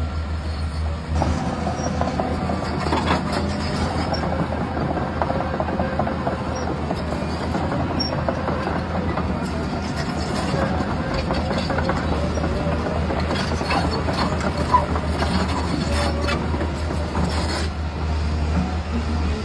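Radio-controlled model construction vehicle running: steady mechanical whirring from its small motor and gears, with scattered clicks and rattles.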